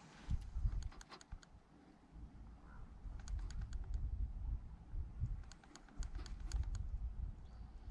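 Fishing reel clicking in three short runs of quick ticks as the line is cranked in, over a low rumble of wind on the microphone.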